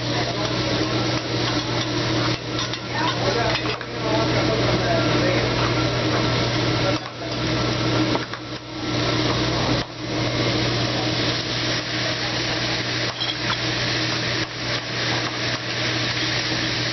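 Metal spatulas scraping and clinking on a hibachi flat-top griddle as food sizzles, over a steady low hum.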